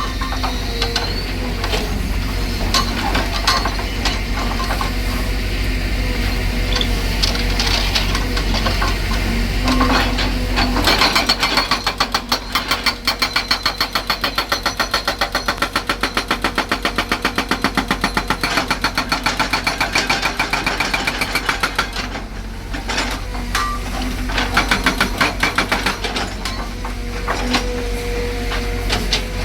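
Hydraulic breaker hammer on an excavator: the engine runs with scattered knocks, then the breaker hammers in rapid, steady blows for about ten seconds from roughly a third of the way in, then it stops and the engine runs on with knocks.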